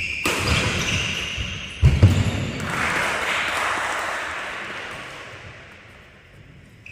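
Badminton players' shoes squeaking and feet thudding on a wooden court floor, with a heavy thud about two seconds in. A rushing wash of noise follows and fades away over the next few seconds as the rally ends.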